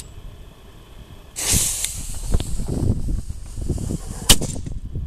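A lighter clicks, then a lit cannon fuse hisses loudly for about three seconds. Near the end the homemade black-powder cannon fires once, a single sharp bang, the loudest moment.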